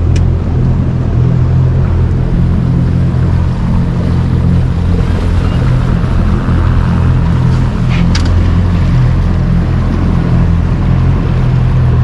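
Boat motor running steadily, driving a flat-bottomed duck boat through floodwater, with a sharp click just after the start and another about eight seconds in.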